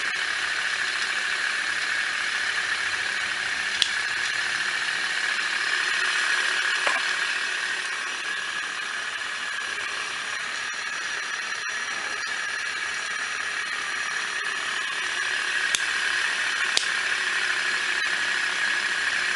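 Ceiling fan running steadily on test, with its normal motor whir and air noise and no scraping, plus a few faint ticks.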